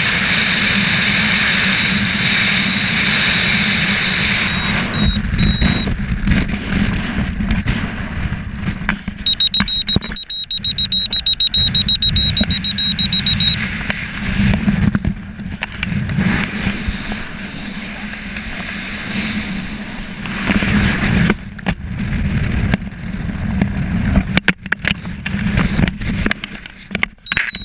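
Wind rushing over a skydiver's helmet microphone: steady and loud in freefall, then uneven and gusty from about five seconds in as the parachute deploys and spins up in line twists. A high electronic beep, typical of an audible altimeter, sounds briefly about four seconds in and again as a rapid steady beeping from about nine to thirteen seconds.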